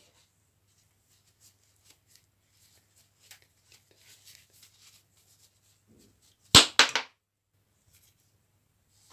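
Hands working with small parts and tools: light clicks and scrapes, then about six and a half seconds in, a sharp clatter of three quick knocks.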